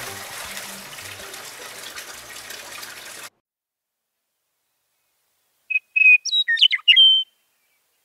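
A songbird calling: a quick run of clear whistled notes, some sliding up and down, lasting about a second and a half, starting near six seconds in. Before it, a steady hiss with a low hum cuts off suddenly about three seconds in, leaving dead silence.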